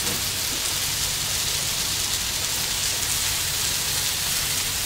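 Chicken and vegetables frying on a hot Blackstone flat-top griddle: a steady sizzling hiss, with the vegetables steaming under a basting dome.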